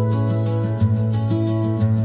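Gentle instrumental background music: soft sustained notes over a slow, regular plucked pulse.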